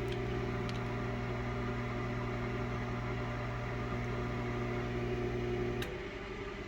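Sharp Carousel SMC1132CS microwave oven running at power level 6: a steady hum from the magnetron and its transformer, which cuts off with a click nearly six seconds in, leaving a quieter steady running sound from the fan and turntable. The cut-off is the magnetron cycling off, which is how a microwave gives a reduced power level.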